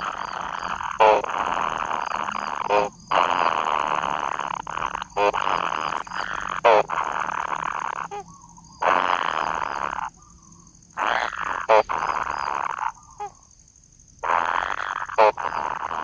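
Kingfisher nestlings calling: a series of harsh, rasping buzzes, each a second or two long with short breaks between, and a few brief squeaky calls in the gaps.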